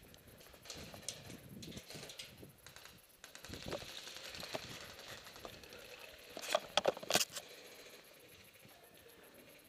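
Light rattling and clicking of handled gear, with a quick run of four or five sharp clicks or pops about seven seconds in.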